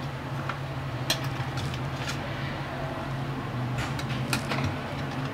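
A slotted steel spatula scraping and clinking against a steel cooking pot while cooked rice is gently turned over, with a handful of light clinks about a second apart. A steady low hum runs underneath.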